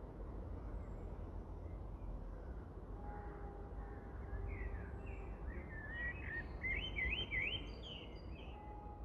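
A songbird sings in woodland: a quick run of chirping notes sweeping up and down, building to its loudest about seven seconds in. Under it runs a low, steady rumble.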